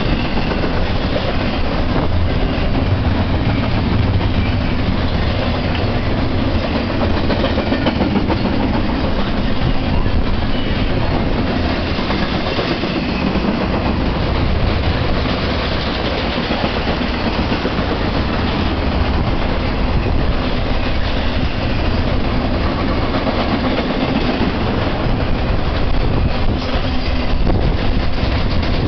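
Intermodal freight train cars, container well cars and trailer-carrying flatcars, rolling past at speed: a loud, steady noise of steel wheels running on the rails.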